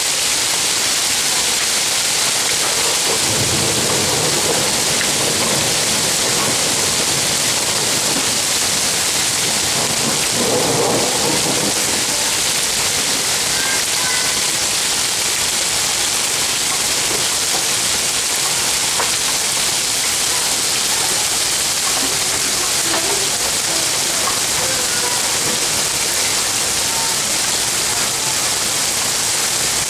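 Steady rain hissing down in a thunderstorm, with two low rolls of thunder, one about three seconds in and one about ten seconds in.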